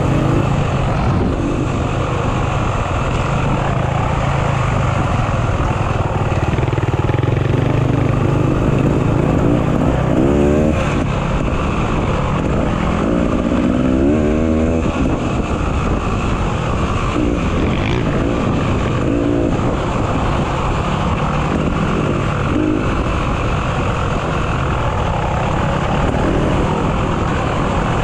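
Off-road motorcycle engine running steadily as the bike is ridden, its note wavering up and down with the throttle about a third of the way in and again near the middle.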